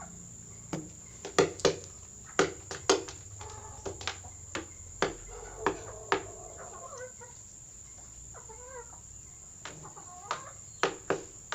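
Rooster pecking at otap biscuits: sharp, irregular beak taps, several a second at times, with a pause in the middle where it gives a couple of soft clucks.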